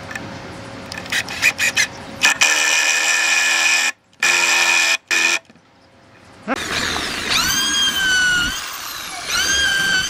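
Cordless drill driving a screw into a wooden bench post, its motor whining in several short trigger bursts that start and stop sharply. Then a drill motor spins up with a rising whine, runs, sags and picks up again.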